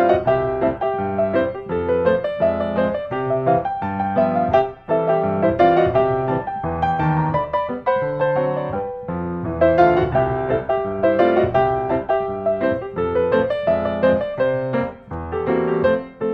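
Background music: a piano piece played as a steady run of notes.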